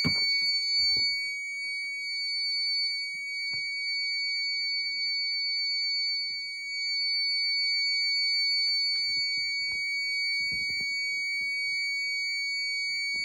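Fire alarm horn-strobe sounding a steady, continuous high-pitched tone. The fire alarm system is in alarm from a pulled manual pull station.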